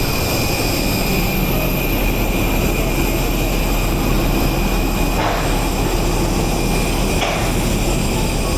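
Steady jet aircraft noise: a low rumble with a constant high whine. Two short knocks or clanks sound about five and seven seconds in.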